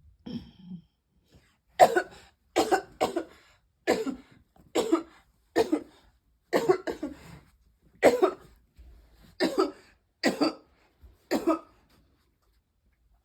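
A person in a coughing spell: a run of about a dozen separate coughs, roughly one a second, that stops near the end.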